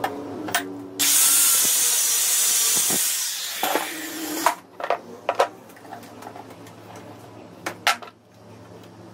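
Hot, freshly cut metal nut quenched in a pot of water: a sudden sharp hiss about a second in that fades away over two to three seconds, followed by a few light metal clinks.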